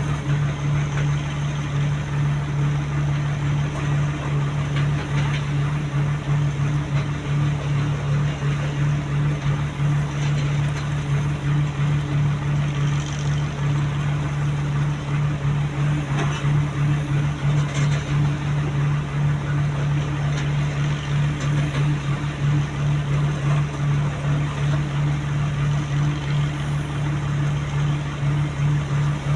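Heavy-equipment diesel engine running steadily with a low, even drone, and a few faint clanks about two-thirds of the way through.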